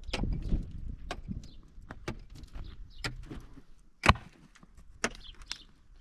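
A series of irregular knocks and clatters, the sharpest and loudest about four seconds in and another about a second after.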